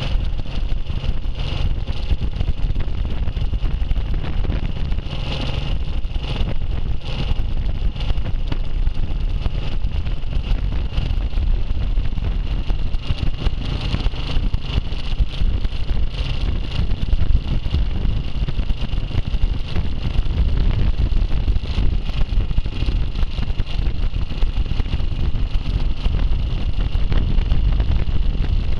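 Vintage motorcycle on the move at road speed: its engine running steadily under heavy wind buffeting on the microphone.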